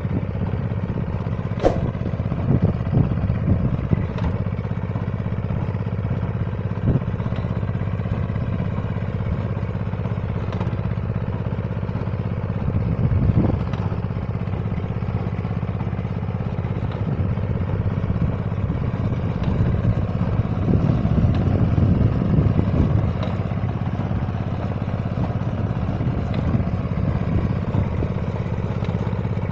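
Engine of a four-wheel reaper binder running steadily under load as it cuts standing wheat, with occasional short clicks and clatter from the machine.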